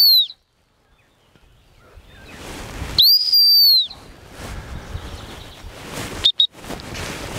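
Dog-training whistle giving steady, high, single-pitch blasts to a quartering bird dog. One blast ends just after the start, another about three seconds in lasts about a second, and two quick short pips come about six seconds in. A rising hiss of wind and movement through the grass fills the gaps.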